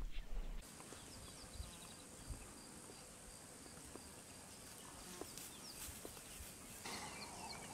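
Faint bush ambience: a steady insect hiss with a thin high whine and scattered short, high chirps. A low rumble cuts off abruptly just over half a second in.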